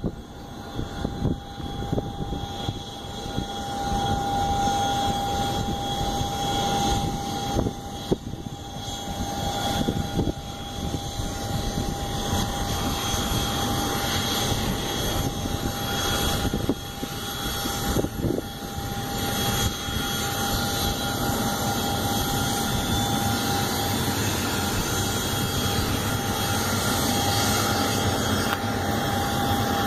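Jet aircraft engines running at high power, a steady roar with a high whine over it, building over the first few seconds and then holding.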